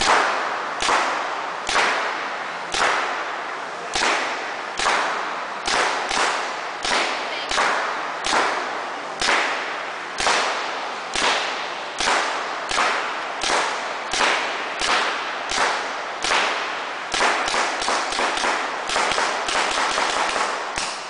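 Paintball gun firing single shots over and over, each a sharp crack with a short echo. About one a second at first, quickening to about two a second in the last few seconds.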